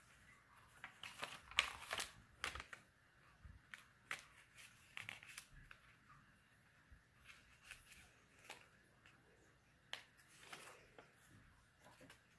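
Paper pages of a paperback workbook being turned and handled, soft rustling with a few short, crisp page flicks scattered through.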